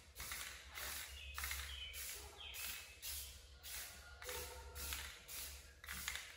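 Aerosol can of clear coat spraying in short repeated hissing bursts, about two a second, as a light first coat goes onto a sanded headlight lens.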